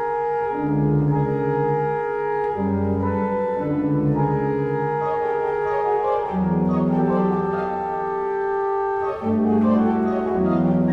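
Pipe organ of the 1925 Molzer house organ playing slow chords: several notes held at once, with the lower notes changing about every half second to a second beneath a sustained upper line.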